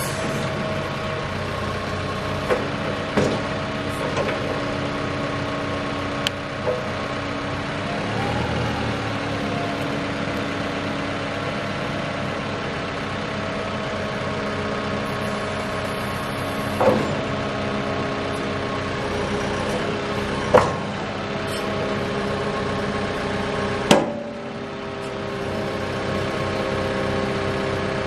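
Caterpillar skip loader's diesel engine running steadily while the loader bucket is raised, lowered, curled and dumped, cycling hydraulic fluid through the system. The engine note rises and falls briefly once. Several sharp metallic knocks come from the loader linkage, the loudest two near the end.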